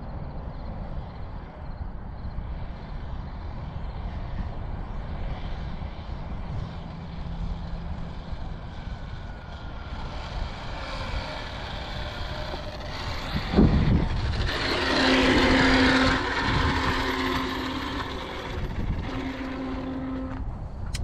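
A vehicle passing close by, building from about halfway through and loudest a little past the middle with a steady hum and a hiss, over a low wind rumble on the microphone.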